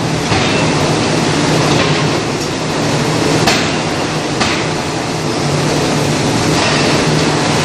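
Hydraulic open die forging hammer at work: a steady hum with a few sharp knocks, the loudest about halfway through.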